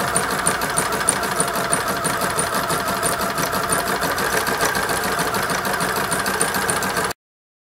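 Electronic sewing machine running steadily as it stitches an applique down through quilt fabric, with a fast, even ticking of the needle over the motor hum. The sound cuts off abruptly just before the end.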